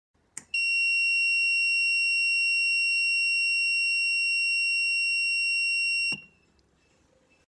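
Mini wireless receiver buzzer sounding one steady, high-pitched beep for about five and a half seconds as it receives the signal from its remote transmitter. A click comes just before the beep starts and another as it cuts off suddenly.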